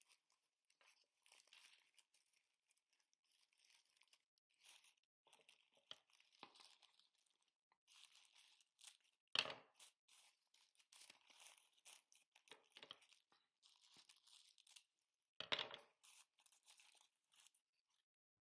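Faint rustling and crinkling of green tissue paper and gold tinsel being handled by hand, in scattered short crackles. There are two louder crackles, about nine and fifteen seconds in.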